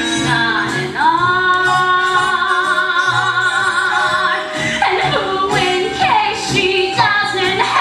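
A woman singing a solo show tune, holding one long note with vibrato from about a second in, then moving into quicker, shorter phrases.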